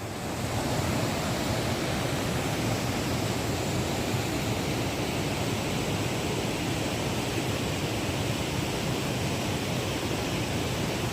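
Rushing water of a mountain stream, a steady even rush that fades in at the start and fades out at the end.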